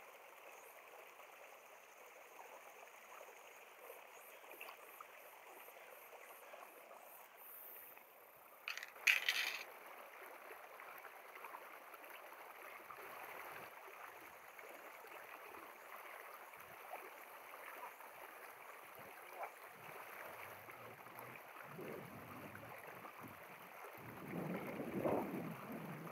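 Steady low rush of a mountain stream, with a brief sharp clatter about nine seconds in and a louder rustle near the end.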